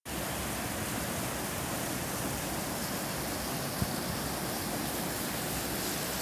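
Steady hiss of heavy rain pouring down on a street, with one brief knock a little after the middle.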